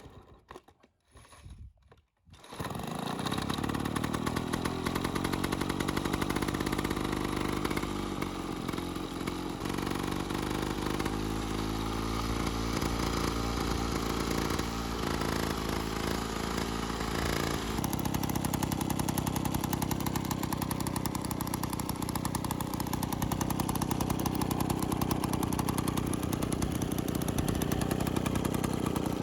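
Vintage Victa Automatic rotary mower's two-stroke engine catching about two seconds in and then running steadily, its note changing about two-thirds of the way through.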